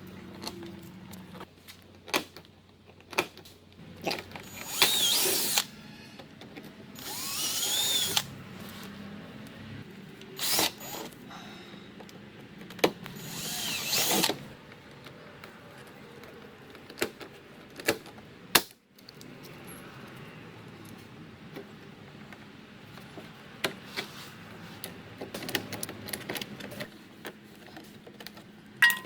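Power drill boring holes in short runs of about a second, three of them, the motor's whine bending in pitch as it spins; sharp clicks and knocks fall in between.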